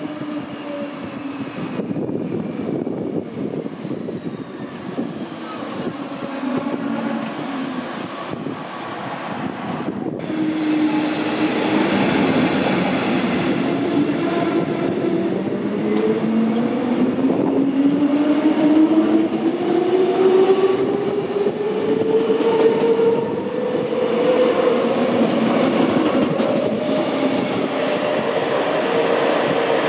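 DB class 420 S-Bahn electric multiple unit in the station, wheels running over the rails and its electric traction motors whining. A faint whine falls in pitch during the first ten seconds, then from about ten seconds in a whine rises steadily in pitch as the train gathers speed, and holds near the end.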